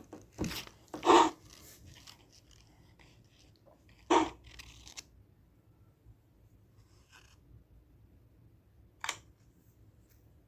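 A few brief, sharp handling noises spaced seconds apart: two close together at the start, one about four seconds in and one about nine seconds in, over a faint low hum.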